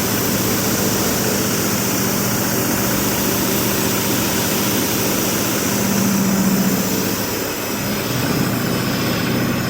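Large machine tool running with a steady mechanical hum, which swells about six seconds in and dips briefly at about seven and a half seconds before settling again.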